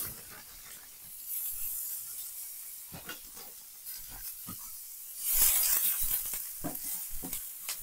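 Chopped onion sizzling in hot chili oil in a nonstick frying pan. The sizzle swells loudest about five seconds in as a wooden spatula stirs it, with light clicks of the spatula against the pan.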